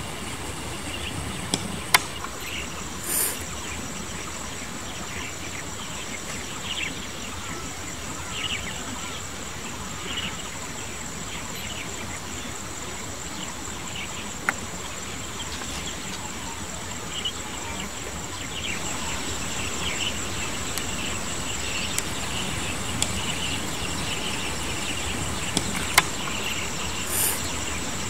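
A steady, high-pitched insect chorus drones throughout, with a fine pulsing texture. Scattered short chirps and a few sharp clicks sound over it.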